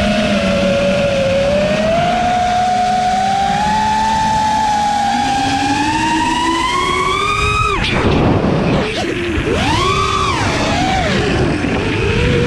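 5-inch FPV quadcopter's brushless motors whining, the pitch climbing steadily as the throttle comes up. About eight seconds in there is a sudden loud rush of air, after which the whine swoops up and down in quick arcs as the throttle is punched and eased.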